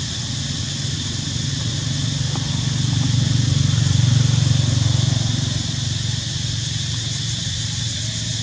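Low motor-vehicle engine drone that swells to its loudest about halfway through and then fades, as of a vehicle passing, over a steady high hiss.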